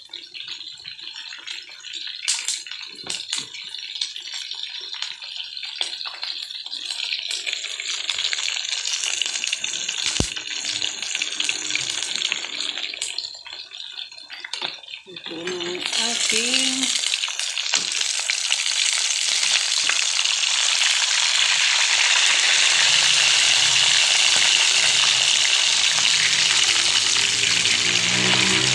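Pork chops frying in hot oil in a pan: a quieter cooking hiss with a few clicks, which swells about halfway through into a loud, steady sizzle.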